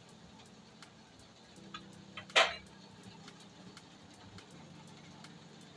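Quiet kitchen room tone with a faint low hum, broken by a single sharp clack of cookware about two and a half seconds in, with two softer ticks just before it.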